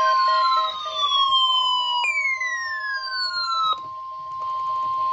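Electronic alert tones: a steady tone near 1 kHz, overlaid by two falling siren-like sweeps that stop about three-quarters of the way through, and a fast beeping of about four to five pulses a second.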